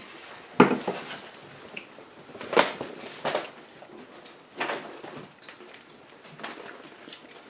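Knocks and clatter of food containers and dishes being handled and set down on a table: about five separate knocks, the loudest about half a second in.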